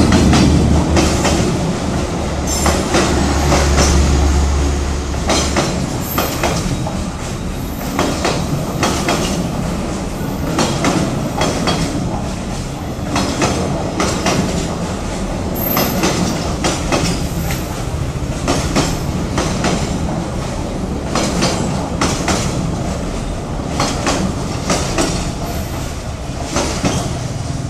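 A D19E diesel-electric locomotive passes close by, its engine running loud with a deep drone for the first five seconds or so. A string of passenger coaches follows, rolling past with irregular clickety-clack from the wheels over the rail joints.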